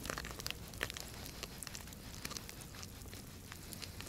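Faint scattered crackles and light clicks of handling noise as a gloved hand jigs a small iced-up ice-fishing rod over the hole.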